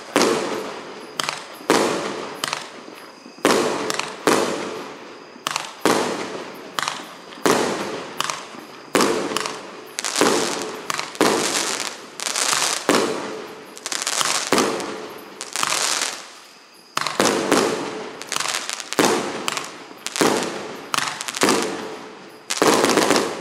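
A 25-shot, 1.2-inch consumer fireworks cake firing shot after shot, about one a second, each a sharp bang that fades out over roughly a second as the next one goes off.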